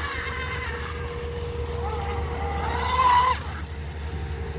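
Radio-controlled model racing boat's motor whining, its pitch rising and falling with the throttle, swelling to its loudest about three seconds in and then cutting back sharply. A steady low traffic hum runs beneath.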